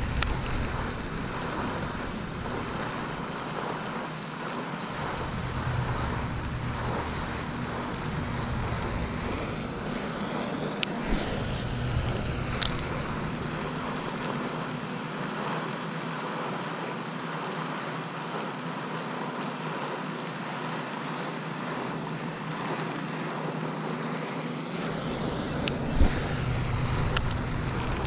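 Wind gusting on the microphone in stretches over a steady outdoor hiss, with a few brief clicks.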